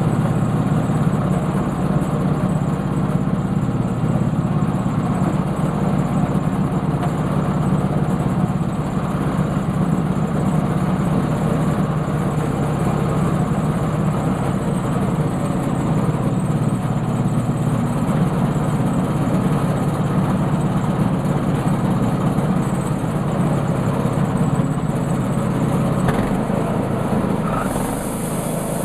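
Sawmill's engine running steadily, with a slight change in its sound near the end.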